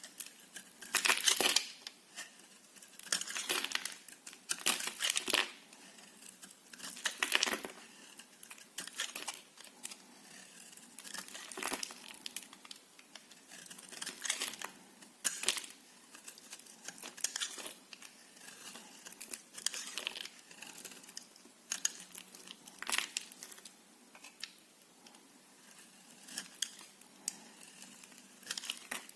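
Soap being cut with a knife: short crisp crunching scrapes, one every second or two, the loudest near the start.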